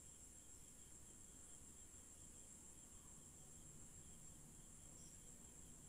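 Near silence: a faint, steady high-pitched hiss.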